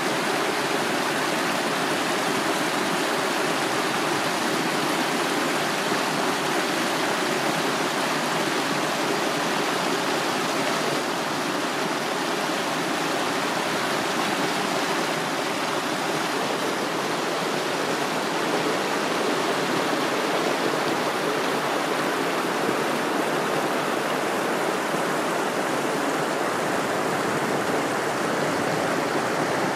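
Steady rushing water of a mountain stream, an even hiss and gurgle that never lets up.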